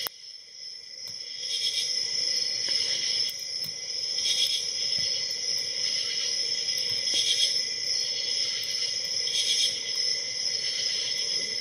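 Faint small clicks and scraping of a short hook pick working the spring-loaded pin tumblers of a 5-pin Commando 44IC3 padlock under tension, over a steady high-pitched hiss and whine that pulses every second or two.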